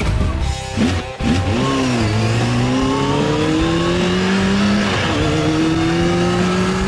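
Engine sound effect of a quad bike revving and accelerating, its pitch climbing steadily, dropping back about five seconds in and climbing again.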